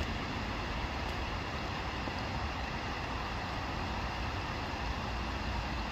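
Steady rumble and hiss of distant road traffic, even throughout with no separate events.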